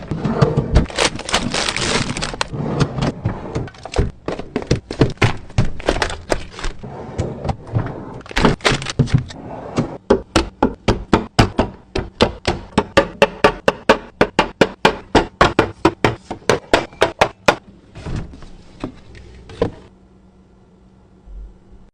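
Hard plastic containers and items clacking and clicking as they are handled and set down. A fast run of sharp clicks, about four a second, lasts several seconds. The handling stops near the end, leaving a faint steady hum.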